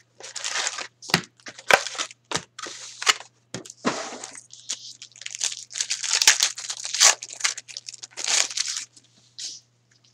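Hockey card pack wrapper being torn open and crumpled in a string of crackly rips, then the cards being handled.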